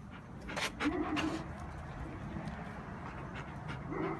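A dog making short, low-pitched whining vocal sounds, one about a second in and another near the end.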